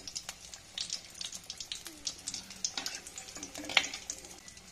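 Besan-battered potato patties deep-frying in hot oil in a kadhai, a steady sizzle full of small crackles and pops. Near the end there is a sharp metal clink as a slotted spoon meets the pan.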